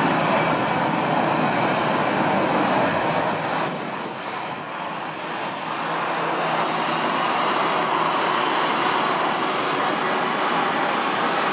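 Jet aircraft engine noise: a steady, loud rushing sound that dips about four seconds in and then builds again.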